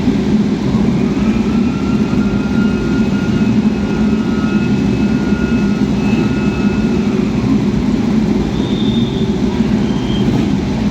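Historic racing car engines running loud and steady, with a fainter higher engine note rising about a second in, holding and fading away.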